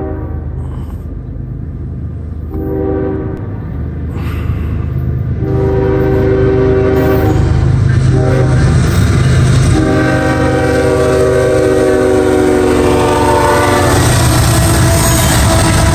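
Freight train's diesel locomotive horn sounding a series of multi-tone blasts for a grade crossing, the last one long, while the locomotives' engine rumble grows louder as they approach and begin passing near the end.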